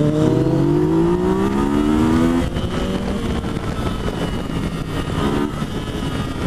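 Yamaha FZ-09's inline-three engine accelerating, its note rising steadily in pitch. About two and a half seconds in the note breaks off, and the engine runs on more quietly under a rush of wind noise.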